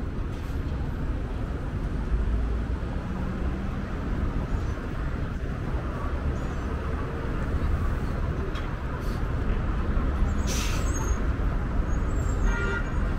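Orion VII diesel transit bus heard from inside the cabin: a steady engine and road rumble while it drives. About ten seconds in there is a short hiss of air from the air brakes.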